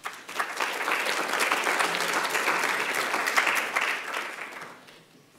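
Audience applauding, many hands clapping at once, starting straight away and fading out over the last second or so.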